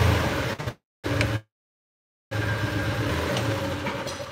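Golf cart engine running steadily with a low hum. The recording cuts to dead silence twice, briefly about a second in and again for about a second after that, then the engine sound returns unchanged.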